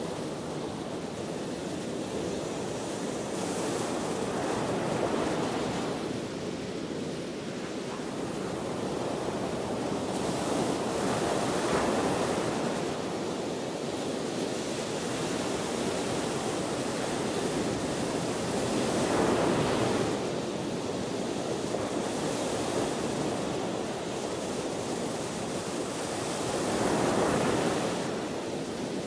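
Ocean waves breaking and washing on the shore, with wind. The surf swells and fades in slow surges, peaking about four times.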